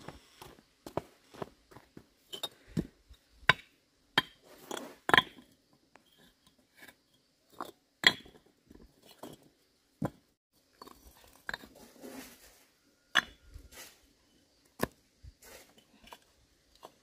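Irregular clinks and knocks of hard objects being handled, a dozen or so sharp strikes spaced unevenly, some ringing briefly.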